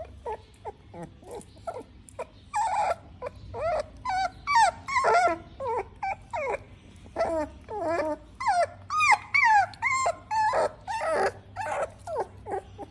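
Pug puppy crying: a rapid run of short, high whimpers and yelps, most falling in pitch, starting about two seconds in.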